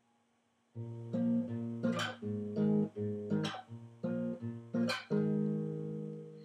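Nylon-string classical guitar played fingerstyle: bass notes and picked chords start about three-quarters of a second in, with a sharper, brighter chord about every second and a half. The last chord rings out and slowly fades.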